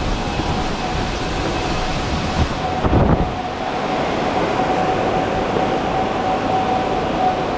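Steady rumble and rattle of a vehicle ride. About three seconds in there is a thump, after which the low rumble falls away and a steady hum remains.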